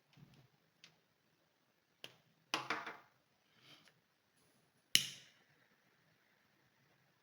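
A few scattered clicks and knocks from small objects being handled. There is a short scraping rustle about two and a half seconds in, and a sharp click, the loudest, about five seconds in.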